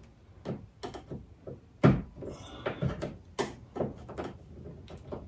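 Irregular clicks and knocks from hand tools and metal hardware as the last fastener of the power liftgate strut bracket is worked off, with a louder knock about two seconds in.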